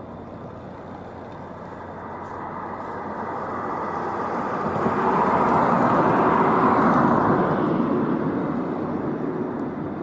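A vehicle passing by: a rushing noise that builds over a few seconds, peaks in the middle, then fades away.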